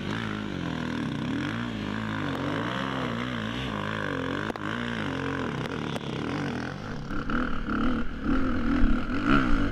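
Off-road dirt bike engine revving up and down over and over as the bike claws up a steep, loose hill climb. About seven seconds in, the sound turns louder and rougher as it switches to an engine heard close up from on board the bike.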